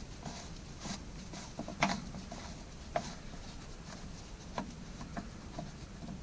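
Handling noise as the cover is pulled off an Oregon CS300 battery chainsaw: scattered clicks and knocks with some rubbing, the sharpest about two and three seconds in.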